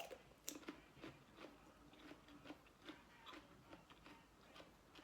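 Person eating close to the microphone: faint chewing with short, irregular mouth clicks and smacks, a few a second.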